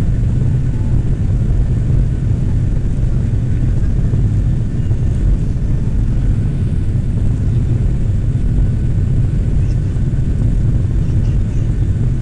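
Steady low rumble inside the cabin of a Boeing 737-700 moving on the ground, its CFM56-7B turbofan engines running with airframe and rolling noise.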